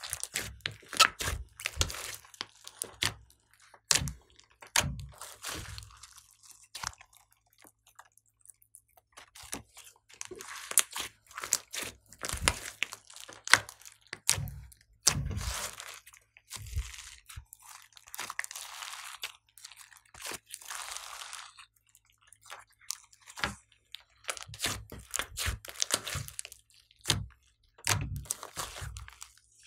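Hands squeezing, kneading and pressing a large mass of glossy slime mixed with clay and glitter: wet squishes, sticky crackles and sharp clicking pops in irregular bursts, with brief pauses.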